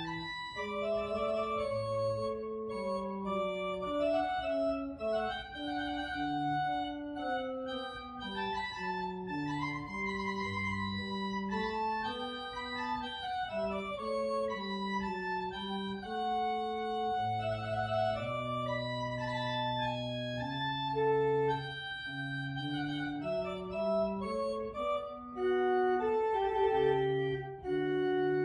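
Organ music: sustained chords over a slowly moving bass line, with a melody stepping up and down above.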